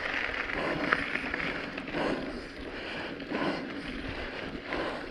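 Motorcycle riding along a gravel dirt road: the engine runs under wind rushing over the microphone, the sound swelling and easing every second or so, with a sharp tick about a second in.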